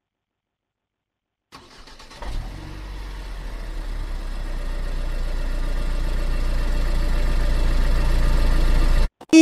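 Car engine starting up about two seconds in and running steadily, growing gradually louder, then cutting off abruptly near the end. A played sound effect standing in for getting into the car.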